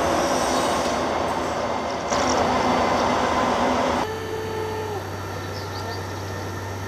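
Czech class 854 diesel railcar running into the station, a loud steady rumble of engine and running gear. About four seconds in this gives way to the quieter, steady low hum of a class 854 railcar's diesel engine idling at standstill.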